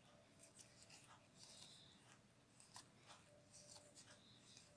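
Faint, soft sliding and flicking of trading cards as they are passed one at a time from a held stack to the other hand.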